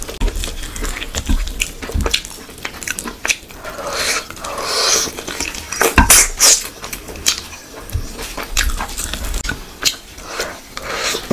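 Close-miked eating sounds: chewing and wet lip smacking on a mouthful of rice and curry, with squelching as fingers mix rice and gravy on a plate, then a big bite near the end. Irregular wet clicks and smacks throughout, loudest about six seconds in.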